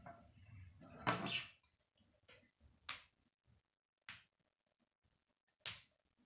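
Plastic K'nex rods and connectors clicking and rattling as hands handle and fit pieces on a model: a short clatter about a second in, then three separate sharp clicks.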